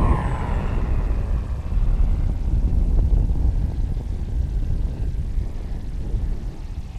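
Electric radio-controlled model T-28 Trojan flying past, its propeller note dropping in pitch just after the start and then fading. A heavy low rumble of wind on the microphone runs under it and is the loudest thing once the plane has passed.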